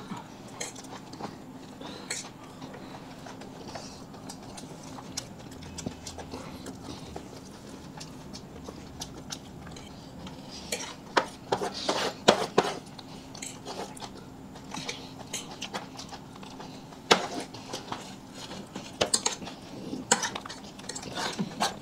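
Spoon and fork tapping and scraping on plates, with chewing, as mouthfuls are eaten fast. The clicks come in clusters, busiest about halfway through and again near the end, over a faint steady hum.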